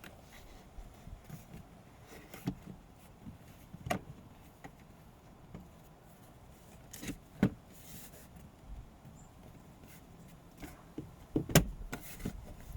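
Scattered clicks and knocks of plastic car trim and fasteners being handled, two of them sharper and louder, about seven seconds in and near the end.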